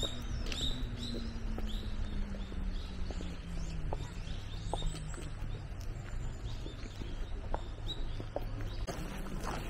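Small birds chirping repeatedly, short high calls that sweep downward, over a low steady hum that slowly drops in pitch.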